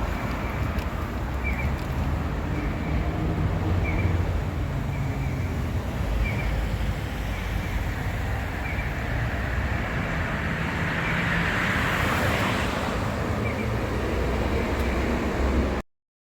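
Steady low rumble of a vehicle in motion, with a faint short high chirp repeating about once a second and a rise in hiss around twelve seconds in; the sound cuts off suddenly near the end.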